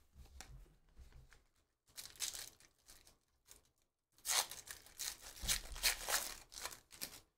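Foil wrapper of a 2023 Panini Phoenix football card pack torn open and crinkled by hand: a short rip about two seconds in, then a longer stretch of tearing and crinkling from about four seconds until near the end.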